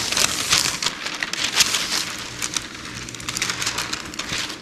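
A sheet of parchment paper crackling and rustling continuously as it is lifted and handled by hand.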